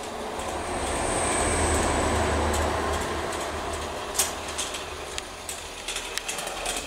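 Mamod SL3 live-steam toy locomotive running along the track: a steady hiss and rattle of its steam and wheels, with a thin high hiss for a second or two, then a run of light clicks as it rolls over the points and rail joints.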